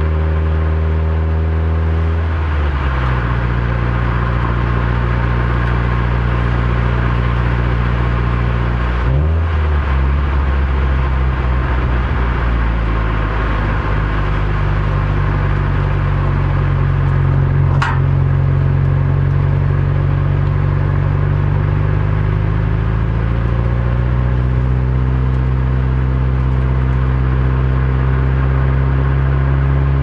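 Subaru WRX STI's turbocharged flat-four engine and road noise heard from inside the cabin while driving. The engine note drops about two seconds in, falters briefly about nine seconds in, then rises gradually as the car accelerates. One short high click comes about eighteen seconds in.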